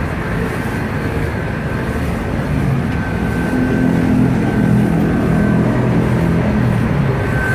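Large Dainichi engine lathe running, its spindle and gearing making a steady mechanical drone with a thin high whine that comes and goes.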